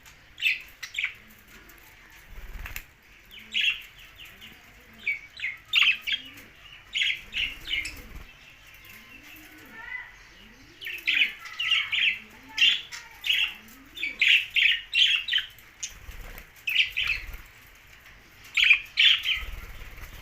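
Budgerigars chirping: short, sharp calls coming in quick clusters every second or two.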